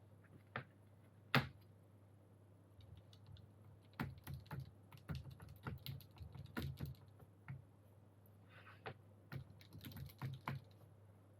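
Mechanical keyboard switches (Gateron Yellows) clicking as they are pressed into the keyboard's plate and PCB: one sharp click early, then an uneven run of short clicks and clacks, several a second, for most of the rest.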